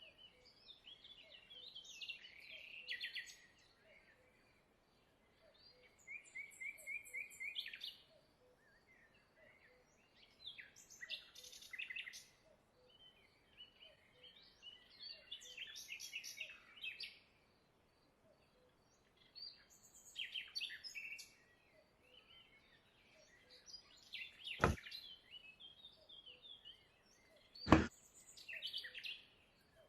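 Small songbirds chirping and singing in short repeated phrases. Two sharp clicks come about three seconds apart near the end, and the second is the loudest sound.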